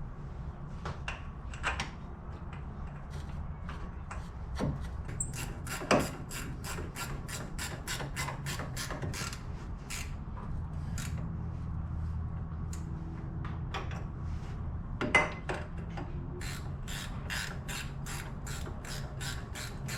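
Hand socket ratchet clicking in quick, even runs as it tightens the brake caliper bolts, with a few sharper metal knocks in between.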